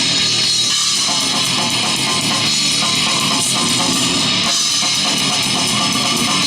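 A heavy rock band playing live and loud, with electric guitar to the fore in a dense, unbroken wall of sound.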